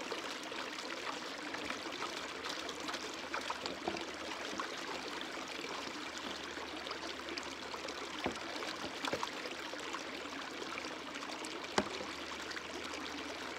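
Water being swished by hand through a fluid bed sluice and splashing into a plastic gold pan, over a steadily running creek, with a few sharp clicks.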